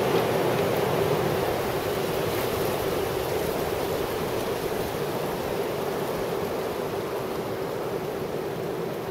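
Steady rush of gusting wind, easing slightly toward the end.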